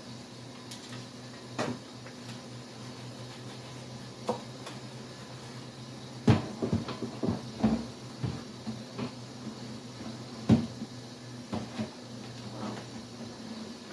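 Dishes and kitchen things being handled and set down: scattered knocks and clatters, with a busy run of them in the middle and a sharp knock about ten seconds in, over a steady low hum.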